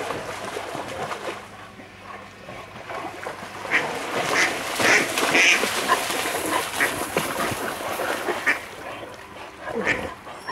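Ducks quacking while a dog splashes through shallow pond water. It is loudest in the middle, with a run of short, sharp sounds.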